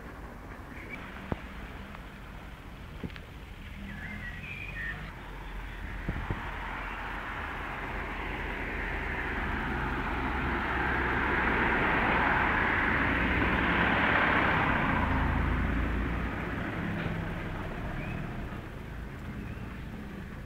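A vehicle passing: a rushing road noise swells to a peak and then fades away over about ten seconds. A few sharp clicks come in the first six seconds.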